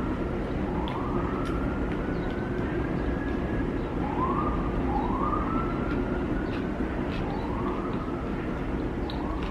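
Emergency-vehicle siren wailing: a pitch that glides up and holds, over and over, above a steady low background rumble.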